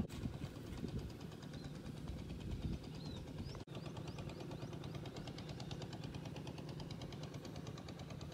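Small electric gear motor driving a cardboard toy truck, whirring with a fast, even rattle as it runs steadily.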